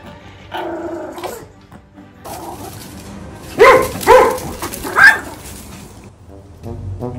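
A small dog barks three sharp, loud barks in quick succession, over background music.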